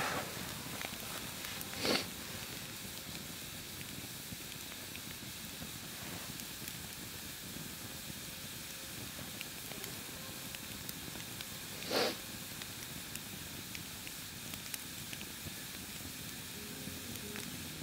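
Campfire burning with a steady soft hiss and faint crackles, with two brief louder sounds about two seconds in and again about twelve seconds in.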